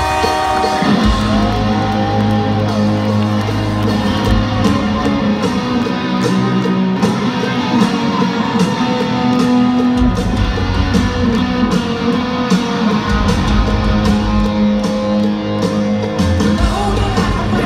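Hard rock band playing live at full volume through an arena PA: distorted electric guitars over bass and drums, with the full band crashing in about a second in.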